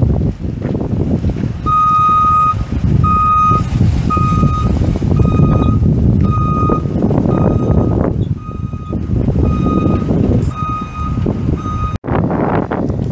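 Backup alarm on a 2000 Chevrolet 3500 bucket truck beeping, one steady high-pitched beep about once a second, over the low rumble of the truck's 5.7L V8 running. The beeping starts about two seconds in and stops abruptly near the end.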